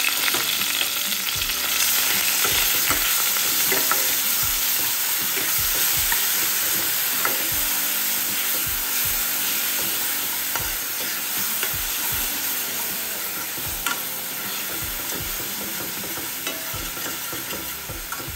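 Crushed shallots sizzling in hot oil in a kadai, while a steel spoon scrapes and knocks against the pan as it stirs them. The sizzle eases off gradually toward the end.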